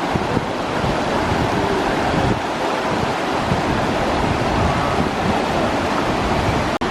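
Steady rush of the fast, high-running Tahquamenon River over its rapids, with wind buffeting the microphone. A very brief drop-out comes near the end.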